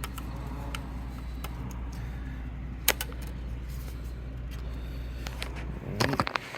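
Steady low hum with small clicks from work on the printer's carriage board: one sharp click about three seconds in, then near the end the hum cuts off and a quick run of clicks and rattles follows.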